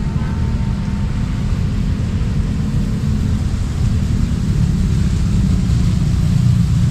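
Steady low rumble of passing vehicles, with no siren or horn tones sounding.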